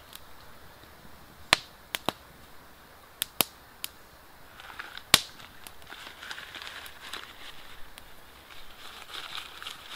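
Small wood fire of kindling crackling, with a handful of sharp, separate pops over a soft hiss; the loudest pop comes about halfway through.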